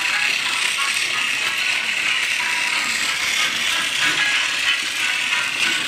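Plarail Thomas the Tank Engine toy train running on plastic track: a steady whirring rattle from its small electric motor and plastic gearbox, with the wheels clattering along the rails.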